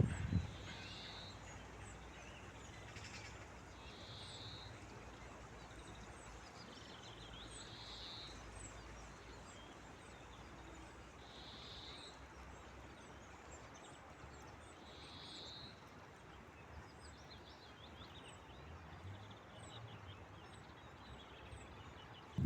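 Faint outdoor birdsong. One bird repeats a short call five times, about every three to four seconds, over many faint high chirps from other birds and a steady hiss.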